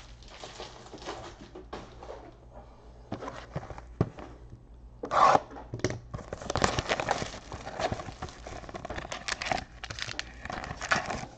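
Plastic shrink wrap being torn and crinkled off a cardboard trading-card box, then the box being opened and handled, with irregular rustling and scattered clicks and a louder burst about five seconds in.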